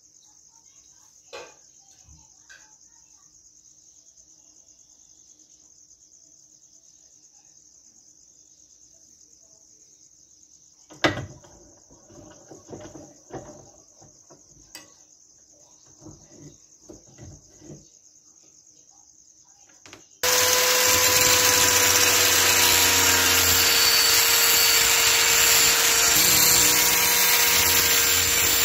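Crickets chirring steadily and faintly. Then a few sharp metal knocks and clanks as a steel blade is clamped into a bench vise. About two-thirds of the way in, an angle grinder starts abruptly and runs loud and steady, its disc grinding the high-carbon steel of an old file blade.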